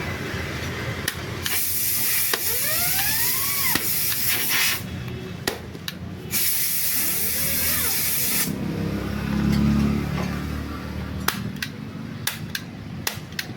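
Two long hissing bursts of spray or pressurised air, each a few seconds long. After them comes a brief low hum, then a few sharp clicks near the end.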